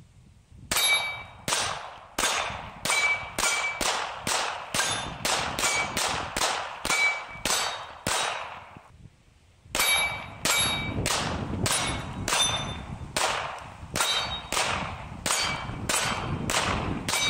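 Smith & Wesson M&P40 2.0 pistol firing .40 S&W rounds in rapid strings, two to three shots a second, with a pause of about a second and a half near the middle. Each shot is followed by a short metallic ring from the steel plate targets being hit.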